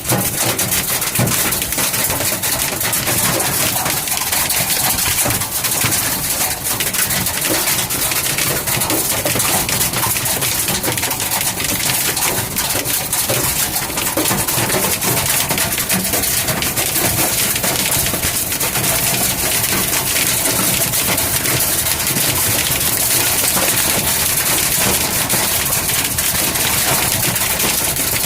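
Hailstones pounding the metal roof and body of a van, a loud, dense, unbroken clatter of countless rapid impacts, heard from inside the van.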